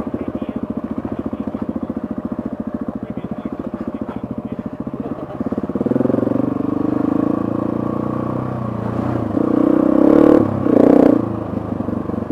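Dirt bike engine running at low revs with an even putting beat, then opening up about six seconds in, with two short bursts of throttle near the end.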